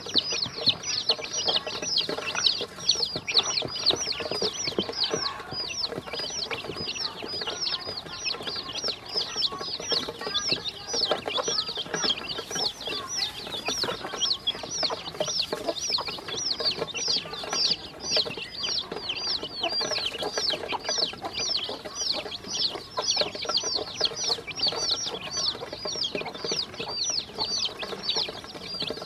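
A brood of baby chicks and ducklings peeping nonstop, a dense stream of short, high, falling peeps, several a second, while they peck feed off the floor of a stainless steel bowl, with many small taps of beaks and bills on the metal.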